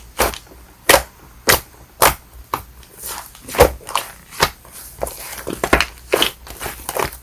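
Fluffy shaving-foam slime being pressed and squished by hand, giving a string of sharp air-bubble pops, about two a second, with soft crackling between them.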